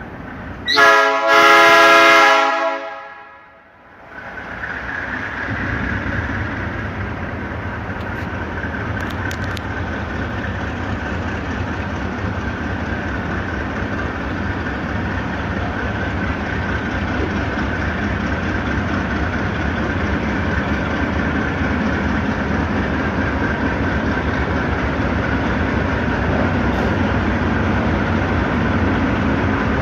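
A train horn gives one loud blast of about two seconds, near the start. A train then rolls past with a steady rumble and a high ringing squeal that grows slowly louder.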